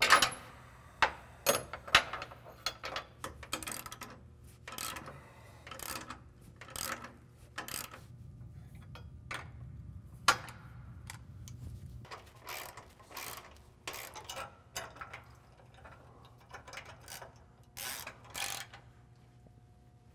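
Hand ratchet and socket clicking in short, repeated runs as the rock slider's mounting bolts are tightened into the truck frame, with a few sharp single clicks near the start.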